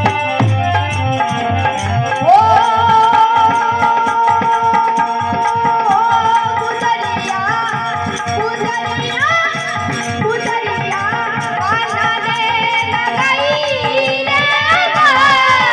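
Instrumental interlude of a Rajasthani folk devotional song: a melodic lead plays ornamented phrases with pitch slides over a steady hand-drum and rattle rhythm.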